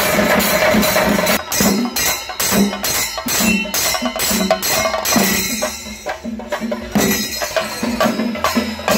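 Kerala chenda drum ensemble (chenda melam) playing live, with a steady rhythm of about three strong beats a second, briefly easing about six seconds in before picking up again.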